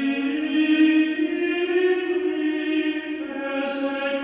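Background music of slow, chant-like singing on long held notes, the pitch shifting only slightly now and then.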